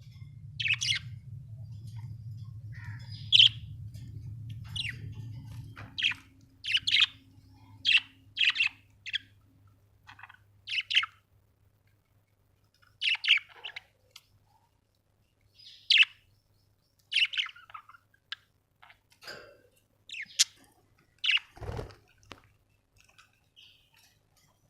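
Budgerigar chirping in short, separate high calls, roughly one a second with brief pauses. A low hum runs under the first few seconds.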